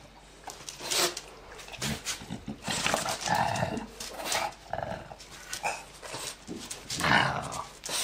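French bulldog making vocal sounds while playing, in short, irregular bursts.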